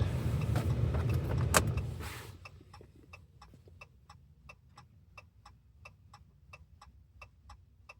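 A low rumble for about the first two seconds, with a sharp click partway through, then stops. After that comes the steady ticking of the 2014 Ram's hazard-light flasher, about three ticks a second.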